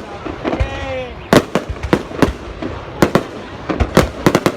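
Fireworks display bursting: a quick, irregular run of sharp bangs, several coming in tight clusters.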